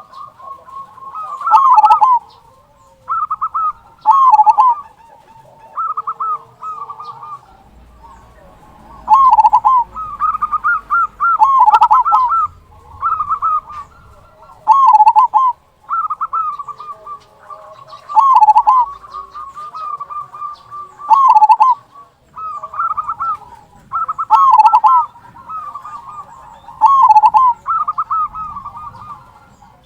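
Zebra dove (perkutut) cooing over and over, a new phrase every two to three seconds: quick stuttering notes that end in a deeper, fuller 'kung' note.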